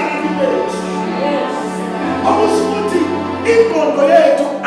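Music: sustained keyboard chords held under a voice singing a wavering, drawn-out line.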